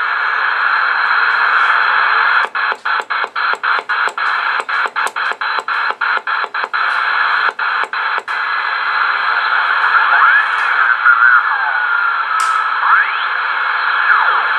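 Cobra 140 GTL CB radio hissing with receiver static. The hiss is broken by a quick run of about twenty brief dropouts and clicks as the channel selector is turned through the channels. It then settles again, with faint sliding whistles in the noise.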